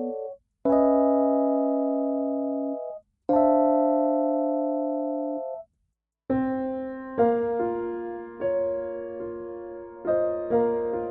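Background music on a keyboard in an electric piano sound: slow chords, each held about two and a half seconds and separated by short silences, then from about six seconds in a more flowing passage with notes struck one after another over sustained chords.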